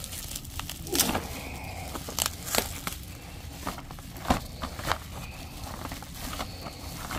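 Bubble wrap being pulled open and unwrapped by hand, crinkling and crackling, with several sharper cracks, the loudest about a second in and just past four seconds.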